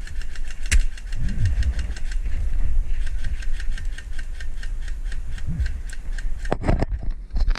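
A rapid, even mechanical clicking, about seven clicks a second, over a low rumble. A few louder knocks come near the end.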